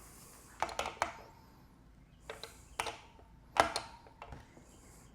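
Metal wrench working the axle nuts of a bicycle wheel as they are tightened onto the frame: sharp metallic clanks in three short clusters, the loudest near the end, some leaving a brief ring.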